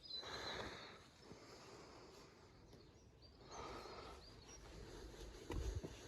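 Quiet rustling and scraping of compost being handled while a carrot is potted up, with a few soft low knocks near the end. A bird chirps faintly at the start.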